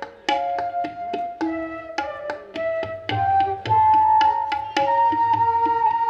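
Background instrumental music: a held, wavering melody over quick hand-drum strokes.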